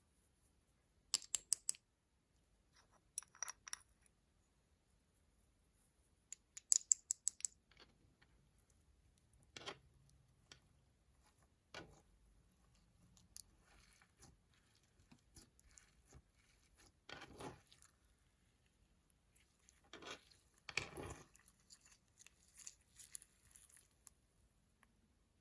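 Makeup and slime being handled close to the microphone: a few quick runs of sharp clicks in the first half, then softer, longer sounds of slime being worked in the second half.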